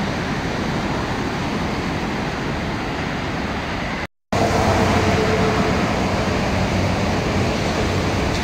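Steady roar of rough surf mixed with road traffic noise. The sound cuts out for a moment about four seconds in, then resumes a little louder.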